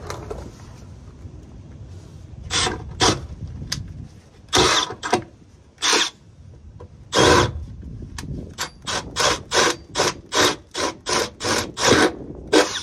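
Cordless drill with a 23/64 in. bit boring up through the underbody sheet metal, run in short bursts on the trigger. The bursts quicken into a rapid run of pulses in the second half as the hole is opened out for a rivet nut.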